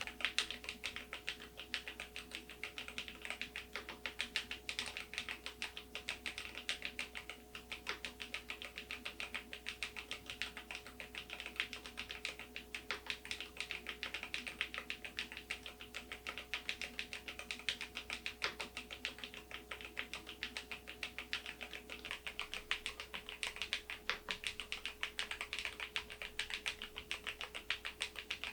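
Continuous fast typing on a Keysme AIM04 HE aluminium keyboard with magnetic (Hall-effect) switches: a dense run of keystroke clacks.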